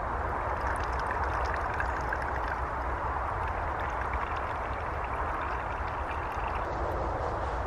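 Liquid fuel poured from a bottle into a Trangia spirit burner, over a steady rushing background noise.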